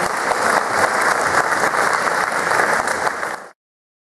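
Audience applauding steadily at the end of a speech, cut off suddenly near the end.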